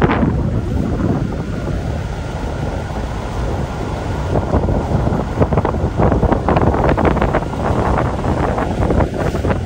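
Loud wind buffeting the microphone over rushing, splashing water, with a faint steady whine through the middle.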